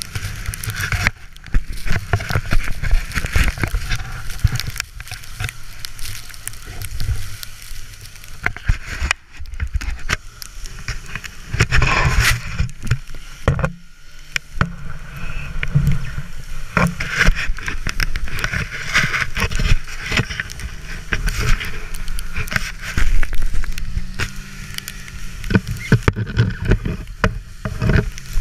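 Sled scraping and rattling over snow at speed while towed behind a snowmobile, a constant run of irregular knocks and bumps mixed with wind on the microphone, and the snowmobile's engine running faintly ahead.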